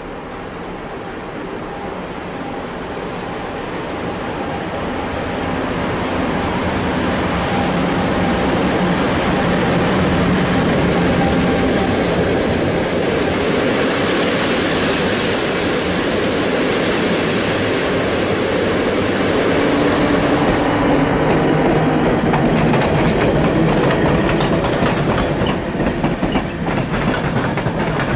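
Electric-hauled passenger train rolling past on the rails, growing louder over the first ten seconds as the locomotive and coaches come by. Near the end come rapid clicks of wheels over rail joints.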